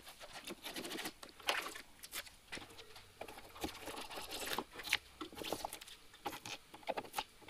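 Knife cutting and scraping away cured expanding spray foam from a rocker-panel repair: a run of short, irregular scraping and crackling strokes.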